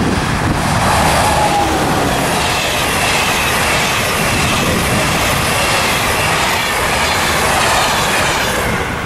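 Passenger train with an SNCF BB 26000 electric locomotive and Russian sleeping cars passing close by, a steady dense rumble of wheels on the rails. A tone falls in pitch about a second in as the locomotive goes by, and from about two seconds in high wavering squeal from the wheels rides over the rumble.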